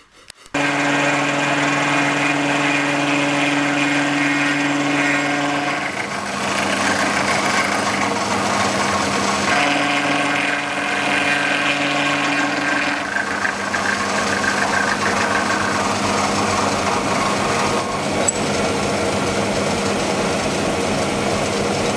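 Milling machine running with its face-milling cutter taking a cut across the top of a metal truck body: a steady machining drone and whine. The tone shifts about six seconds in, briefly comes back between about ten and thirteen seconds, then holds steady.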